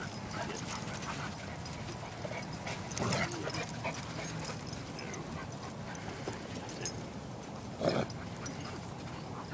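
Dogs playing tug-of-war over a rubber toy: scuffling, with two short dog vocal sounds, one about three seconds in and a louder one near the end.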